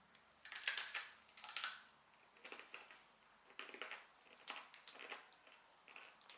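Dry instant ramen noodles being bitten and chewed: two loud crunching bites near the start, then a run of smaller crunches about every half second.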